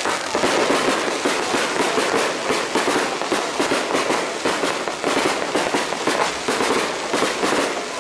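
Fireworks display crackling: a dense, continuous rattle of many small rapid pops from glittering crackle bursts overhead.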